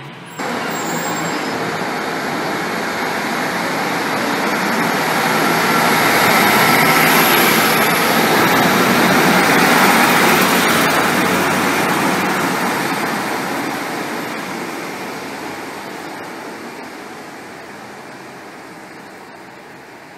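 First Great Western Class 150 Sprinter diesel multiple unit running along the platform close by. The engine and wheel noise grows to a peak about halfway through, with a faint high whine near the loudest point, then fades as the train moves away.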